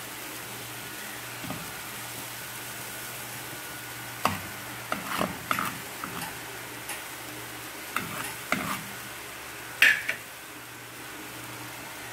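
Beef fillet escalope sizzling in a frying pan of bubbling brown stock and wine, a steady hiss. A utensil scrapes and knocks against the pan in scattered strokes, the loudest knock near the end.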